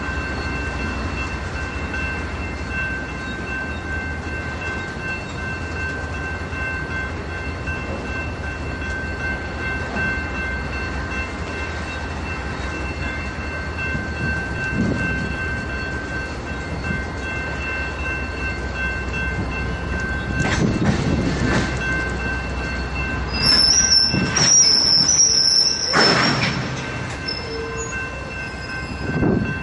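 Flatcars of a loaded rail train rolling slowly past, a steady low rumble with a few steady high tones over it. About four-fifths of the way through, the wheels squeal high for a couple of seconds, and there are a few short clanks near the end.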